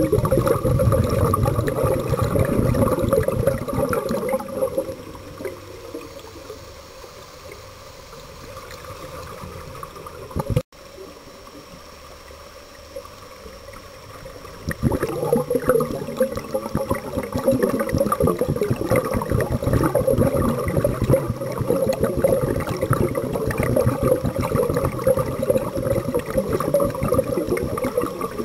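Underwater water noise with scuba bubbles: a dense crackling rush, loud for the first few seconds, softer through the middle with a brief dropout, then loud and steady again for the second half.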